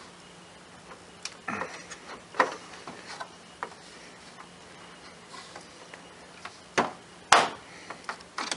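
Plastic back cover of an LCD TV being pried off by hand, its snap-in clips letting go in a series of irregular sharp clicks and snaps, the loudest near the end.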